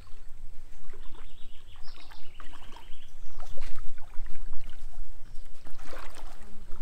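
Water sloshing and splashing as a man wades through a shallow pond, dragging a seine net through the water, over a steady low rumble.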